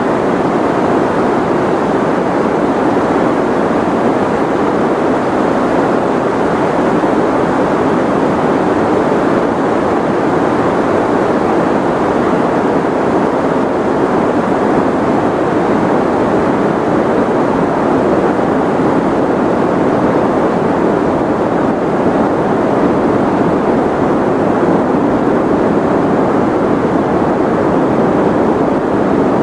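Steady sleep-aid white noise: an even, unchanging hiss weighted toward the low and middle range, with little treble.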